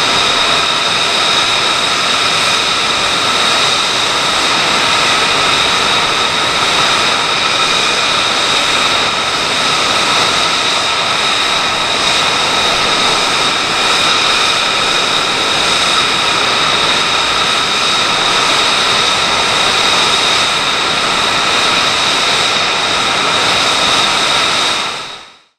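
F-35A Lightning II's Pratt & Whitney F135 jet engine running steadily at idle: a loud rush with a high, constant whine, fading out at the very end.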